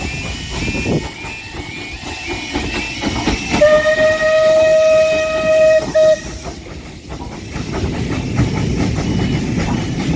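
Bulleid Battle of Britain class steam locomotive 92 Squadron running with its train, wheels clattering over the rail joints. About three and a half seconds in, the whistle sounds one steady note for about two and a half seconds, with a brief break just before it stops.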